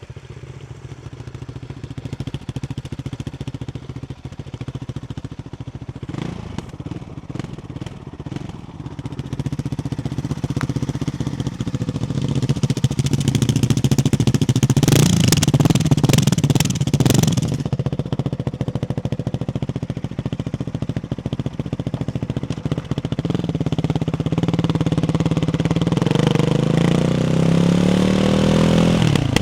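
Ducati Hypermotard 698's single-cylinder engine running through a Termignoni exhaust with baffles fitted, revs building gradually. About halfway through a loud stretch with added crackle, then near the end the engine note climbs steadily in pitch and drops off sharply as the throttle closes.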